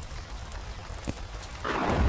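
Open fire crackling in scattered small pops over a low steady rumble of storm ambience; about one and a half seconds in, a loud clap of thunder breaks in over rain.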